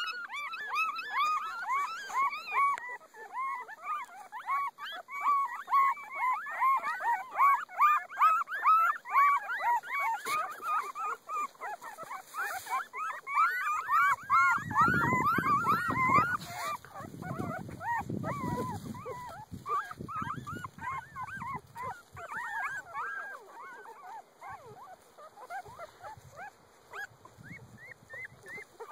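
A litter of ten-day-old Boykin Spaniel puppies whimpering and squealing: many short, high, overlapping cries, thinning out in the second half. A low rumbling noise is heard for a few seconds about halfway through.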